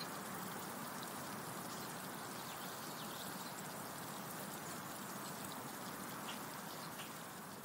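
Faint, steady background hiss with a light crackle in it.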